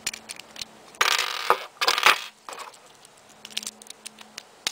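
Metal and plastic parts of a Sagittario Beyblade clicking and clinking as the top is taken apart and its metal wheel set down on a wooden table, with a louder clatter from about a second in to just past two seconds.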